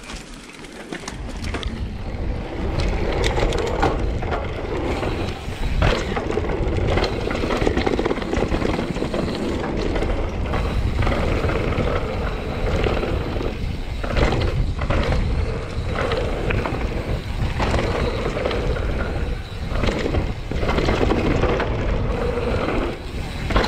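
Mountain bike riding fast down a dirt and gravel trail: a steady rush of tyre and wind noise with frequent rattles and knocks from the bike over bumps. The noise builds up over the first couple of seconds as the bike gathers speed.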